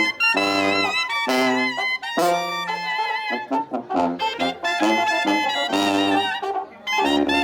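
Sinaloan banda playing live: brass and reed instruments in short, punchy phrases over a low bass line, with a brief break shortly before the end.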